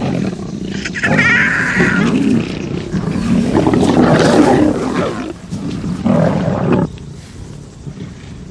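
Lions growling and roaring aggressively in several loud, rough bursts, with a break about five seconds in, then stopping abruptly about seven seconds in; a lioness is threatened by another lioness's cubs.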